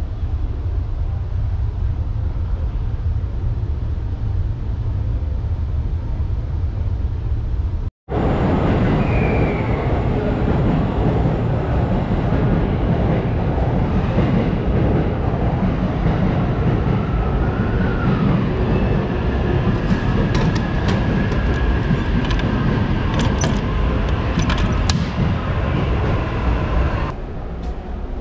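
Steady low rumble aboard a stopped express train standing at a platform. About 8 seconds in it cuts to louder, busier railway station platform noise with scattered clicks, which drops away just before the end.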